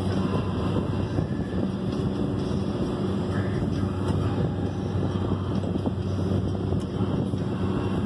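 Steady mechanical hum and rumble of running machinery, with several steady low tones, mixed with wind noise on the microphone.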